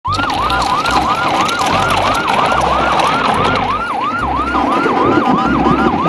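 Fast yelping siren, a rising-and-falling wail repeating about three times a second, over a low pulsing rumble.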